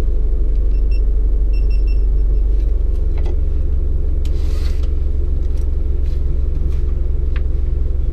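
Rally car's engine idling steadily, heard from inside the cabin. A few faint short high beeps sound between about one and two seconds in.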